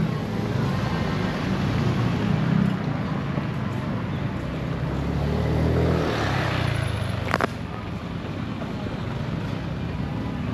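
Steady rumbling noise of a vehicle in motion. A single sharp click comes about seven seconds in, after which the sound is a little quieter.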